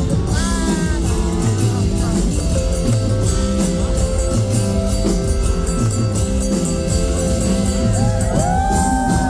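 Live band playing loudly with singing over a repeating bass line, with held notes that slide in pitch near the start and near the end.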